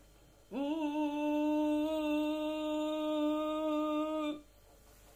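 A woman's scream muffled by both hands pressed tightly over her mouth. It comes out as one long, steady humming note at a fixed pitch, starting about half a second in and held for about four seconds.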